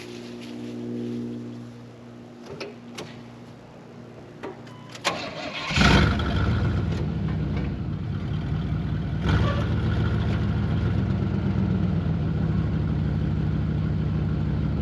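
A pickup truck's engine cranks and starts about six seconds in, then runs steadily at idle. Before it come a faint hum and a few clicks and knocks.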